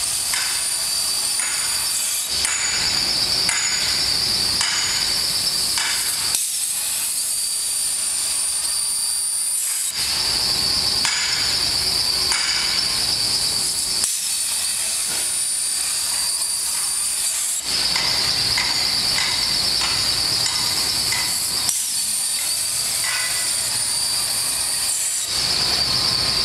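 CNC plasma cutting torch cutting slots in 4-inch square steel tube: a loud hissing arc with a steady high whine, in runs of about four seconds. Three times it drops out for three to four seconds between cuts, leaving a softer hiss.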